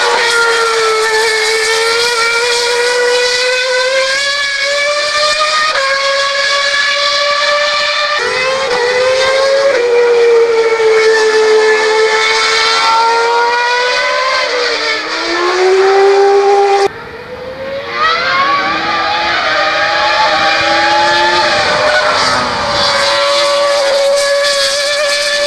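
Formula 1 car engine running hard at high revs. Its note holds and glides up and down, with sudden jumps in pitch at gear changes, and it dips sharply for about a second a little past halfway.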